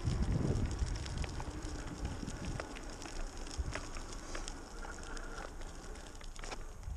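Electric mountain board rolling on pneumatic tyres over cracked asphalt: a steady low rumble of the tyres with scattered crackling clicks from grit and cracks in the road, heard close from a board-mounted camera.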